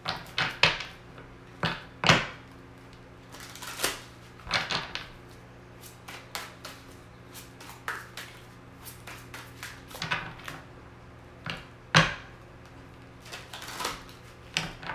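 A deck of tarot cards being shuffled by hand, with cards slapping and clicking together in irregular bursts. The loudest snaps come about two seconds in and again near twelve seconds.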